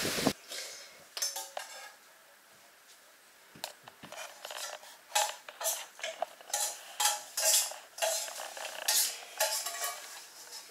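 Metal pots and utensils being handled, clinking and clattering in a quick, irregular run of sharp clinks with brief ringing. It starts after a quiet couple of seconds and is busiest in the second half.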